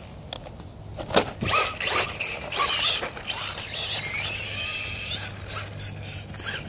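Electric RC rally car's motor whining up and down in pitch as it is driven, with sharp clattering and scraping about a second in.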